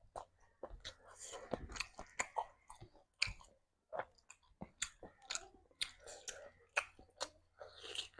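Close-miked chewing of a mouthful of food, with many irregular wet smacks and clicks of the mouth.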